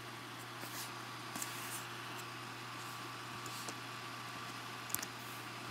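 Steady low hum and hiss of room and computer background noise, with a few faint sharp clicks of computer keyboard keys, a pair of them about five seconds in.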